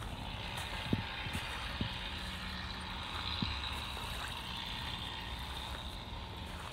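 A steady, engine-like mechanical drone with a hiss above it, from a distant motor running without change, and a few soft knocks in the first few seconds.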